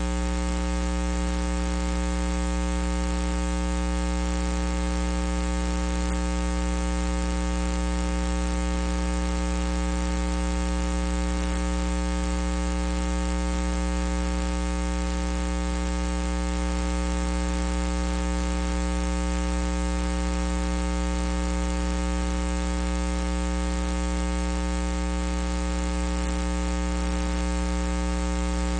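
Steady electrical mains hum, a low buzz with many evenly spaced overtones, over a constant hiss; it never changes.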